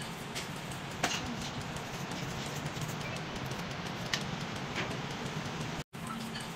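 Nail salon room noise, a steady hiss-like background, with two sharp clicks, about a second in and again about four seconds in.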